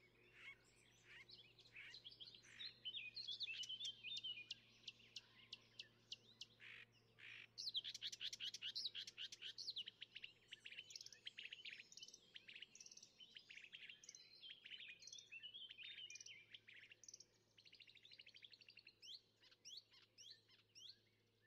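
Several songbirds singing together, overlapping chirps and quick trills, over a faint steady low hum.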